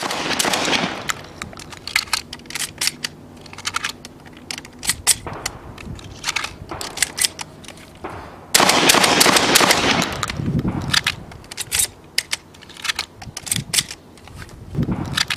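Shotgun fire with sharp clacks in between. The loudest parts are a loud stretch right at the start and a quick string of shots about halfway through.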